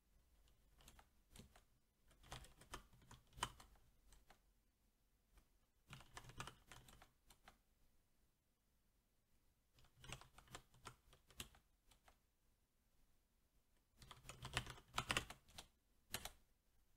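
Typing on a SteelSeries 6Gv2 mechanical keyboard with Cherry MX Black switches: several short runs of quick keystrokes with pauses of a couple of seconds between them, fairly faint.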